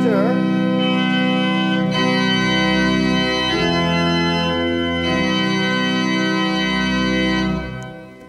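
Fenton pipe organ playing sustained chords on its full principal chorus: 8-foot, 4-foot and 2-foot principals with the three-rank mixture stop added. The chords change a few times, low bass notes come in about two seconds in, and the sound dies away near the end.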